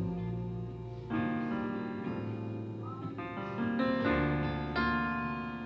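Keyboard playing slow, sustained chords, with a new chord struck about a second in and several more changes later.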